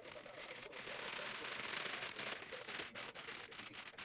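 Crinkling and tearing of a plastic-and-foil food pouch as hands pull it open, a dense crackle that is loudest in the middle.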